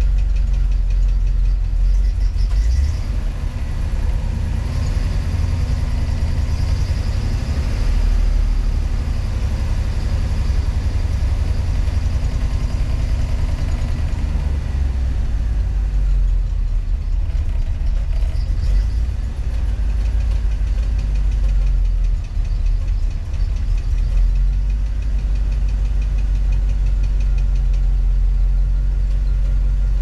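International Scout engine idling hot with low oil pressure, carrying an odd mechanical noise that comes and goes. The owner suspects a failed camshaft bearing and rocker assemblies running dry.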